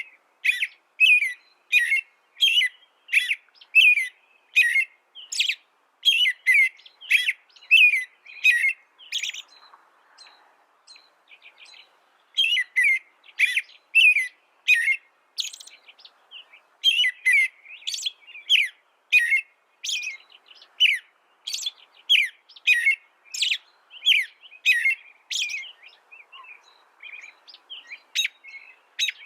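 A small pet songbird chirping over and over, about two short notes a second, with a pause of about three seconds a third of the way through and softer notes near the end.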